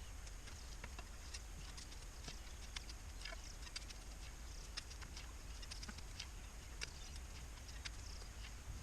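Faint outdoor background: a steady low rumble with scattered short, sharp clicks, a few a second.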